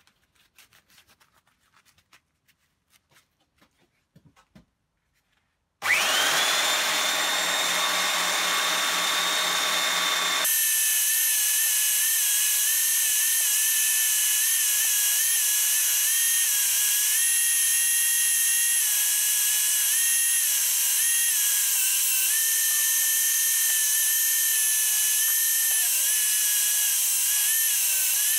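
Belt sander switched on about six seconds in, its motor whine rising as it spins up and then running steady. From about ten seconds in, the stacked leather hammer handle is ground against the moving sanding belt: a loud, steady hiss, with the motor's pitch dipping and recovering as the handle is pressed in.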